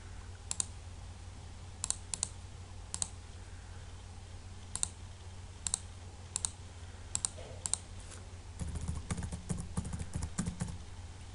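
Computer mouse clicking, single clicks about once a second, then a quick run of keyboard typing from about nine seconds in until shortly before the end, over a steady low hum.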